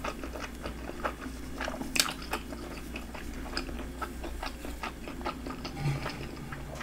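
A person chewing a mouthful of food with the mouth closed: irregular wet clicks and smacks, with one louder click about two seconds in.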